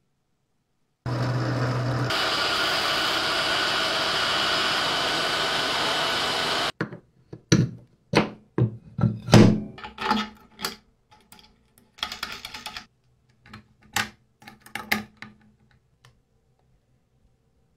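A steady machine whir for about six seconds that cuts off suddenly, followed by a run of sharp clicks and knocks as a small steel cylinder is set down and tapped on a hard white plastic surface.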